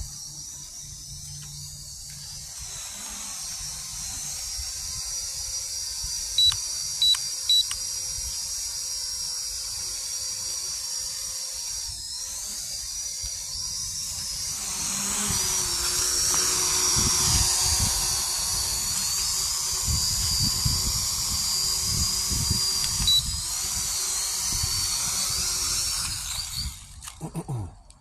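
Small TSRC toy quadcopter's motors and propellers running with a steady high-pitched whine, getting louder as it goes. Three short beeps sound about six to seven seconds in and one more later. The whine winds down and stops near the end.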